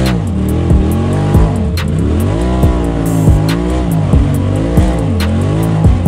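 UTV engine revving up and down, rising and falling in pitch, under music with a steady drum beat of about one and a half beats a second.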